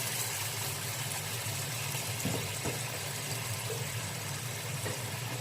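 Steady low hum with an even hiss beneath it, and a couple of soft knocks about two and a half seconds in as the chicken and water in the pot are stirred.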